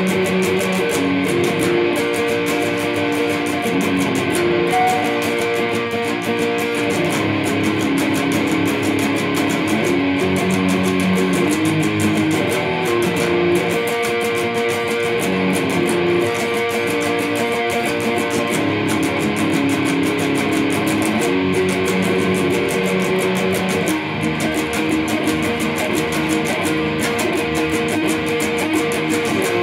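Electric guitar being played, sustained chords and notes that change every couple of seconds.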